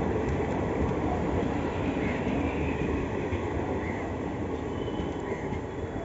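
Coaches of an Indian Railways express train rolling past on the rails, wheels and bogies running steadily. The noise slowly fades as the last coach, a luggage van, goes by and the train moves away.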